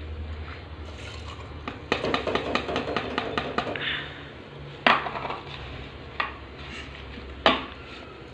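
Steel spoon stirring rice and water in an open pressure cooker, scraping and clinking against the metal pot in a quick run of small clicks, then three sharper knocks of spoon on metal, the loudest near the middle and near the end.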